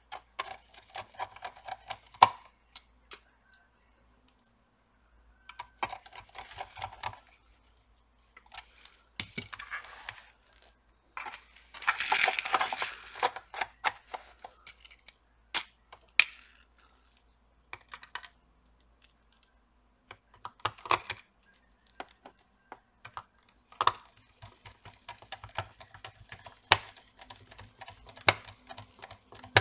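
Handling of a Dell Vostro 15 laptop's plastic bottom case while a small screwdriver fits screws into it: irregular bursts of light clicks, taps and rustling, broken by short pauses, with a longer rustle near the middle.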